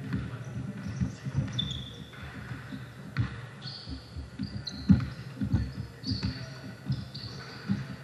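Basketball being dribbled on a gym court: a run of irregular thuds, with short high squeaks of sneakers on the floor several times.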